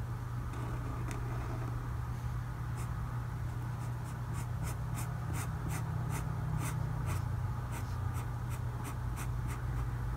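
Tombow ABT pen tip scratching across paper as the shading of a letter is coloured in: a few separate strokes, then from about four seconds in a quick run of short back-and-forth scratches, about three a second. A steady low hum runs underneath.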